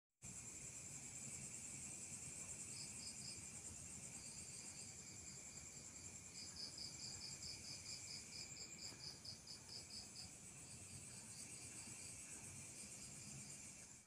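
Faint chorus of crickets and other night insects: steady high trilling, with a run of quick even chirps, about four a second, through the middle.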